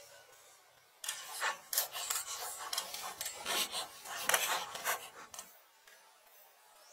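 A run of rough, irregular scraping strokes of a hand tool on a hard surface, starting about a second in and fading out after about five seconds.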